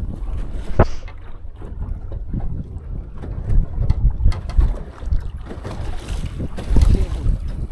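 Wind buffeting the microphone on a small fishing boat, with waves slapping against the hull and a few sharp knocks.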